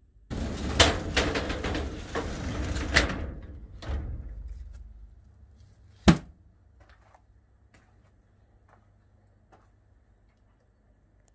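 Sliding doors of a steel storage shed rumbling and clattering along their track for about three seconds, then a single sharp bang about six seconds in as a door shuts, followed by a few faint taps.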